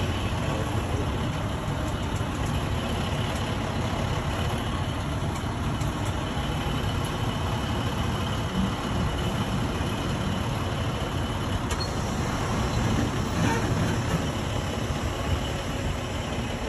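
Semi truck's diesel engine running steadily as the tractor-trailer maneuvers slowly at low speed.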